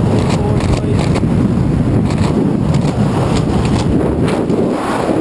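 Loud wind buffeting the camera's microphone during a tandem parachute descent under an open canopy, a continuous low rumble with irregular gusts.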